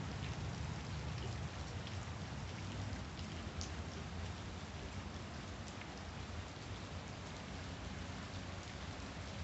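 Steady rain falling on wet grass, puddles and pavement, with now and then a single drop striking close by. A low, steady rumble runs underneath.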